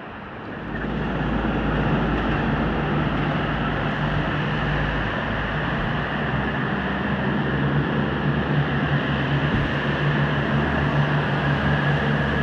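V/Line VLocity diesel railcar passing below, its diesel engines giving a steady low drone under a wide rumble. The drone comes in sharply about a second in and holds steady.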